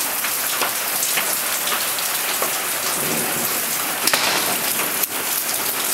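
Torrential rain falling steadily on a timber deck, with scattered drips ticking now and then.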